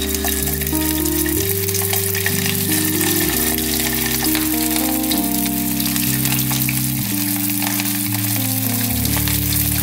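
Blocks of cold cooked rice deep-frying in hot oil in a wok, a steady sizzling crackle, with background music of sustained notes underneath.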